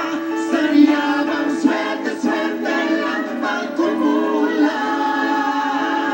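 Mixed vocal group of men and women singing together in harmony into handheld microphones, as part of a pop song medley.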